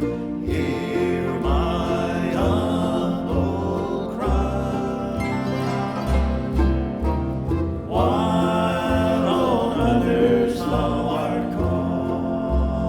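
Live bluegrass band music: a fiddle carries the melody over plucked strings and a steady line of bass notes.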